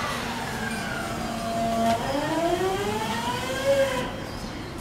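GTO-thyristor VVVF inverter of a JR East 209-series electric train whining. Tones fall at the start, hold one steady pitch for about two seconds, then several tones rise together, as at low-speed acceleration, and fade near the end.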